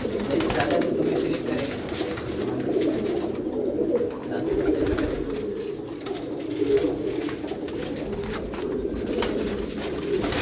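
Gola pigeons cooing without a break, many low calls overlapping.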